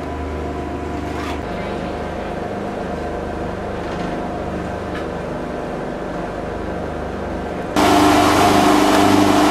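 Houseboat engine running with a steady drone, muffled inside the cabin. Near the end it turns suddenly louder and clearer out at the stern, with the rush of churning wake water over the engine.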